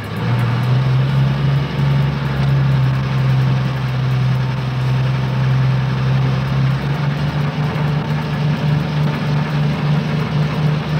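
Truck engine idling with a steady low rumble. From about seven seconds in, the rumble settles into an even pulsing chug.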